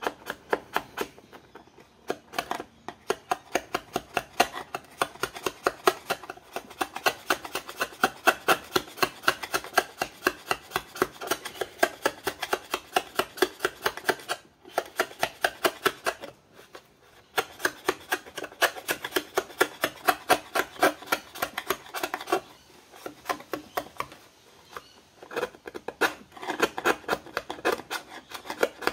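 A sharp chisel scraping old paint off motorcycle plastic bodywork in repeated short strokes, a few a second, stopping briefly a few times.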